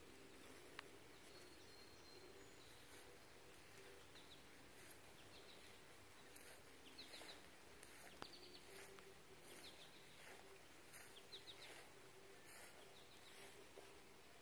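Near silence outdoors: faint background ambience with a few soft, short bird chirps now and then, and a couple of faint clicks.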